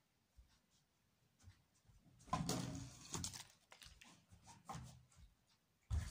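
Rustling and scuffling of movement, with a few light knocks, then a sharp knock near the end as a plastic water bottle comes down on a wooden table.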